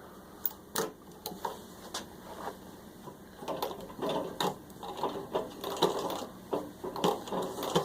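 Antique 1904 Singer 15-30 treadle sewing machine clicking and clattering as it is worked, sewing through six layers of denim. The clicks are sparse at first and come faster and busier about halfway through.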